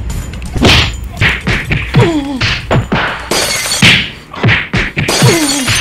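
A staged scuffle: a fast series of whacks and thuds, several of them followed by a short grunt that slides down in pitch, with two longer rushing noises in between.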